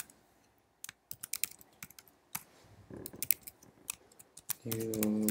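Typing on a computer keyboard: a run of quick key clicks as code is entered, followed near the end by a short steady hum.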